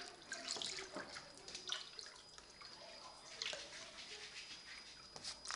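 Water splashing and dripping in a small plastic paddling pool as a young mink swims through it, with a garden hose pouring in. Irregular splashes and drips, louder about half a second in and again a little past the three-second mark.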